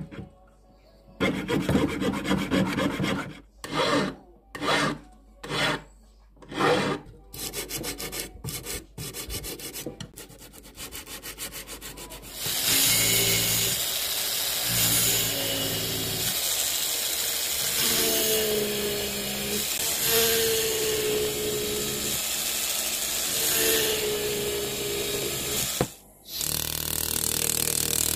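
Jeweller's saw cutting through the casting sprues of a cast gold pendant: a few separate strokes, then a fast run of rapid strokes. About twelve seconds in, a rotary handpiece drill with a small bur takes over, whirring steadily with a wavering pitch as it drills out the stone settings. After a short break near the end, another steady tool noise follows as the settings are closed.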